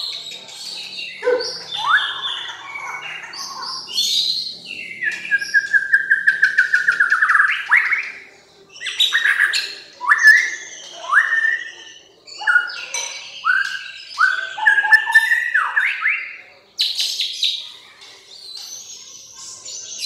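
Caged songbirds singing a loud, varied song. About five seconds in comes a fast run of repeated notes, followed by a string of short rising whistles.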